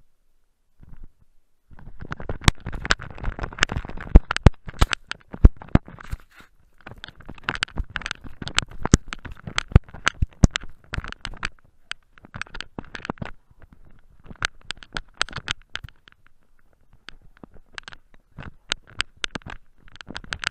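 Crunching and scraping from a camera worn by a dog as it bounds through dry, very cold snow after a thrown toy ball: fur and snow rub against the camera and paws crunch, in irregular bursts of a few seconds with short pauses.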